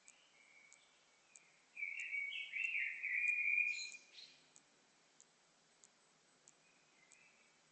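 A bird singing one loud phrase of quick warbled and sliding notes lasting about two and a half seconds, with a few softer notes before and after it. A faint tick repeats about every two-thirds of a second underneath.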